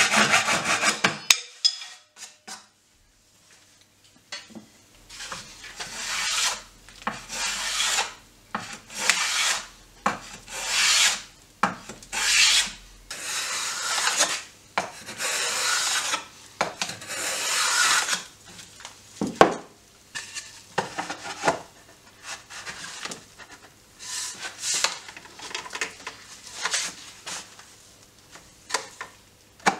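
A hand saw cutting pallet wood ends about a second in. After a short pause, a hand sanding block rubs back and forth along the edge of a pallet-wood board in repeated rasping strokes, each about a second long, that grow shorter and quicker in the second half.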